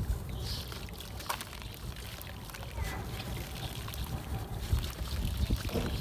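Chunks of red dirt and concrete crumbling and breaking up in water, with small trickling and crackling sounds over a constant low rumble.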